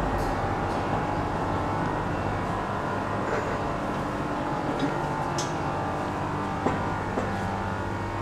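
Steady machine hum with several steady low tones, with two faint clicks about seven seconds in.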